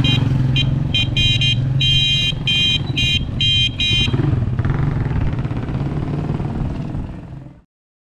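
A motor vehicle engine running steadily close by, with a high horn sounding in short, irregular toots over the first four seconds. The sound cuts off abruptly near the end.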